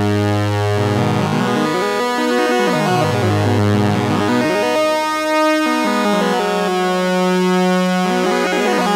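Three modular-synth oscillators playing the same sequenced, quantized melody, each copy delayed by a different amount, so the notes overlap and form shifting intervals. Sustained pitched tones step from note to note, with several sounding at once.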